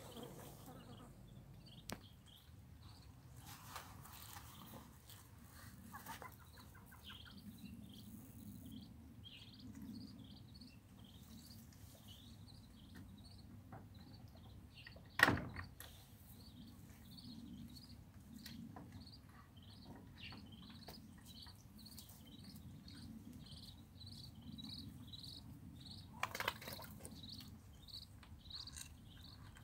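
Madagascar teal ducklings peeping: a long string of short, high peeps, faster and more frequent in the second half. A sharp knock about halfway and a brief rattle near the end.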